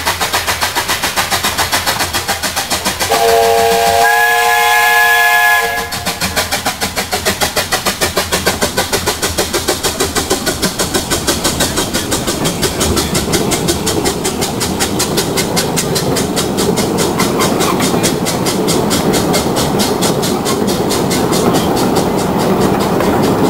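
Hunslet 0-4-0 saddle tank narrow-gauge steam locomotive chuffing steadily as it works past, with one long whistle blast of about three seconds starting about three seconds in. Its open carriages then rumble by on the rails under the continuing chuff.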